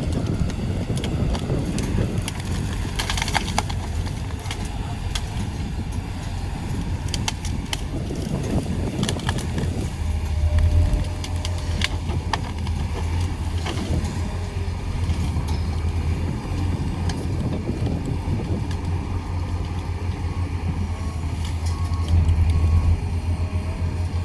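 Pindad excavator's diesel engine running with a steady low drone that swells twice. Scattered clicks and knocks ride over it.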